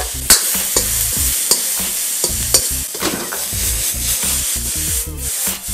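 Diced vegetables sizzling as they hit a very hot plain-iron wok and are stir-fried, with a steady hiss and repeated sharp clacks and scrapes of a metal ladle against the wok.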